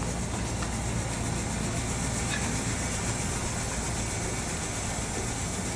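Steady low rumble with an even hiss of background noise and no distinct events.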